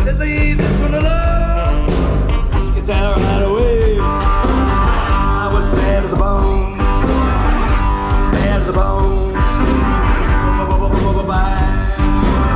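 Live rock band playing loudly through a large outdoor PA: electric guitar, drums and a lead vocal, heard from within the audience.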